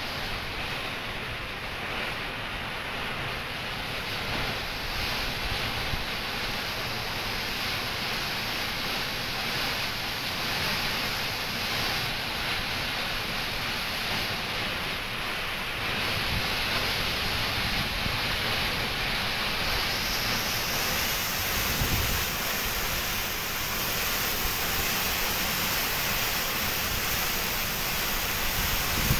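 Water jetting out of a dam's open sluice valve and crashing into the river below: a steady rushing of spray that grows louder about halfway through and again a few seconds later.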